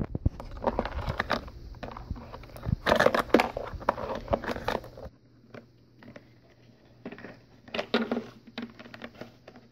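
Hard plastic toy parts being handled: clicks, knocks and rubbing as a figure is pushed into a toy submarine's cabin and a hinged plastic hatch is worked. Busiest and loudest in the first five seconds, with a few more clicks near the end.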